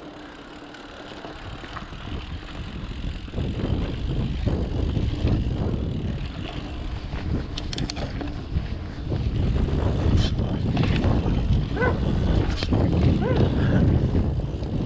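Wind buffeting the microphone and tyres rolling on a dirt trail as a mountain bike rides down a jump line, growing louder over the first few seconds as speed builds. A few sharp rattles come about halfway through.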